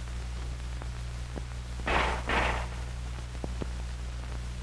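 Two pistol shots about half a second apart, about two seconds in, from an M1911 .45 pistol fired in a quick two-shot burst. Under them is a steady low hum and a few faint clicks from the old optical film soundtrack.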